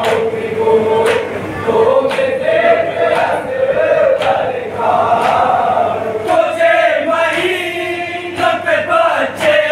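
A group of men chanting a nauha (Shia lament) in unison, with sharp slaps about once a second from matam, the rhythmic beating of the chest.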